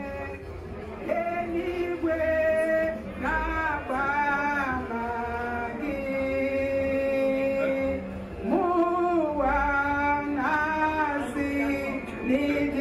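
A woman and men singing together through microphones, a slow song of long held notes that slide from one pitch to the next.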